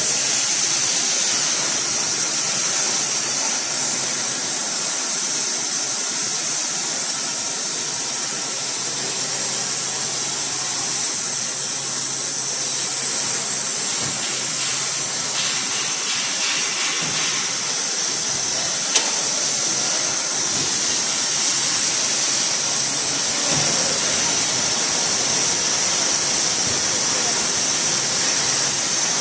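Sawmill with an 11 kW main motor running steadily, giving a constant high-pitched hiss, with one sharp click about 19 seconds in.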